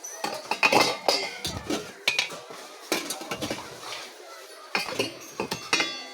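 Dishes and metal kitchenware clinking and clattering: an irregular run of sharp knocks, some with a short ring.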